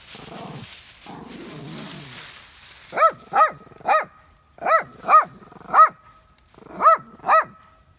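A dog barking in short, quick runs of two or three, starting about three seconds in, after a stretch of low rustling noise.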